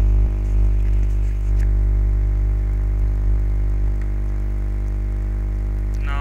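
Steady low electrical hum, a stack of unchanging tones strongest at the bottom, typical of mains hum picked up by the recording microphone.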